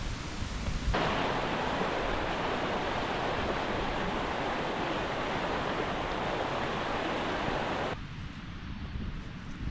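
Steady rushing of running water, starting abruptly about a second in and cutting off abruptly about two seconds before the end, leaving quieter outdoor ambience.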